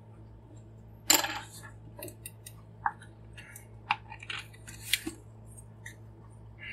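Hard plastic parts of a large transforming robot action figure clacking and clicking as it is handled and its legs are adjusted: one sharp clack about a second in, then scattered lighter clicks.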